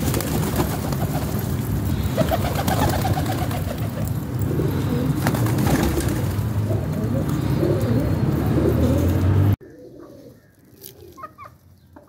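A flock of domestic pigeons cooing together, a dense low warbling murmur, which cuts off abruptly near the end. What follows is much quieter, with a few faint short bird calls.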